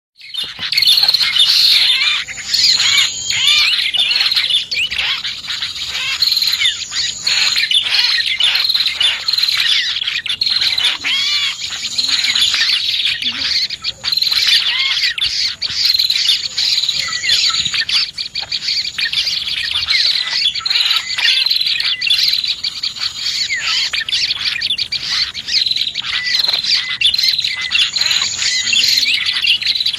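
Prinias (prenjak) and other small songbirds calling in a dense, continuous high-pitched chirping chatter, as played on a bird-lure (pikat) recording.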